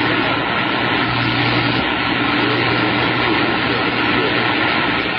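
CB radio receiver hissing with steady static, band noise with no voice on the channel. A faint constant whistle and a low hum run through it.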